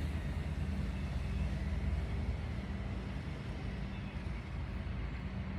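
Steady road traffic noise, with a low rumble that eases off about two seconds in.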